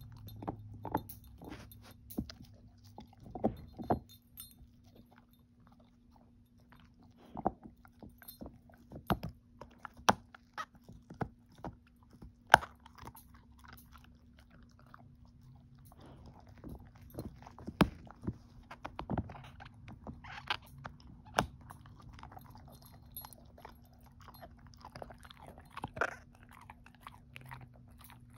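A shepherd-mix dog gnawing on a hard "everlasting" chew treat: irregular crunches and sharp clicks of teeth on the chew, with a brief lull and one especially loud crack partway through.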